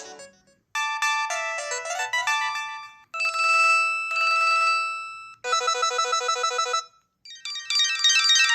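LG LX150 mobile phone playing its preloaded ringtones, a run of short electronic tunes that change every couple of seconds with brief gaps between them: one of sustained bell-like notes, one of quick repeated pulses, and a busier melody starting near the end.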